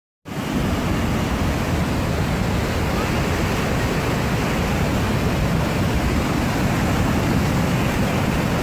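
Flash-flood water rushing in a loud, steady torrent, heavy in the low end; it cuts in suddenly just after the start.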